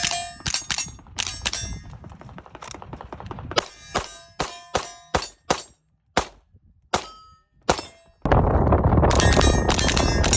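A string of rapid .22 LR rifle shots from a CMMG Bravo, each hit setting steel targets clanging and ringing. There are a few short pauses. About eight seconds in, a loud steady rushing noise comes in under more ringing hits.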